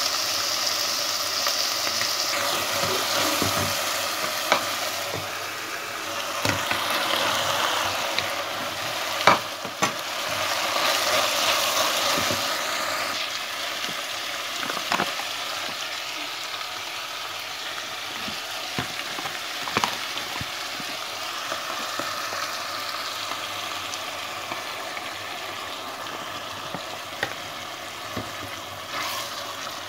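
Ground meat and sliced hot dogs sizzling steadily in a pot while a wooden spoon stirs them, with a few sharp clicks.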